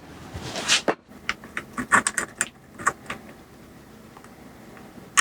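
Light metallic clicks and clinks from tools and bike parts being handled, in an irregular run over about the first three seconds, then only a low steady background.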